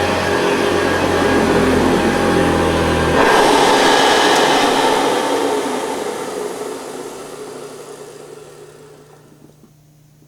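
Hoover Convertible 1030 upright vacuum cleaner's motor running loudly on high speed. About three seconds in, its low hum cuts out and the motor winds down, the noise fading away over about six seconds.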